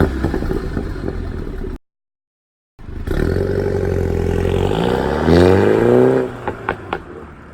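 Mini Cooper F56 JCW's turbocharged four-cylinder engine accelerating, its pitch rising under load. The sound cuts out completely for about a second, two seconds in. A second pull rises and then drops off near the end, followed by a few sharp clicks.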